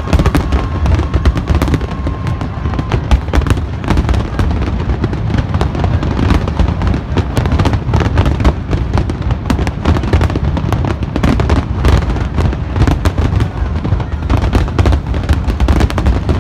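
Large aerial fireworks display: many shell bursts in rapid, overlapping volleys with crackling, over a continuous low rumble. Loud.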